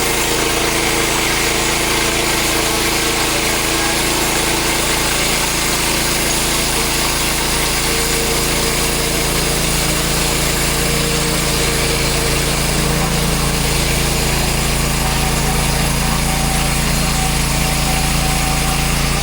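A portable bandsaw sawmill running steadily, its engine holding an even pitch as the blade cuts through a log.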